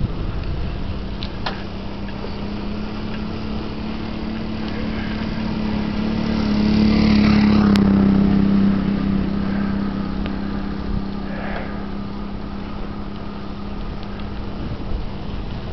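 A small motor vehicle engine hums steadily, swelling louder for a few seconds in the middle and then easing off, over wind and road noise.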